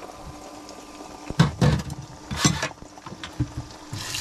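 A few loud knocks and clatters come in the middle over a steady low hiss. Near the end, eggs frying in lard in a frying pan start sizzling loudly as they are stirred.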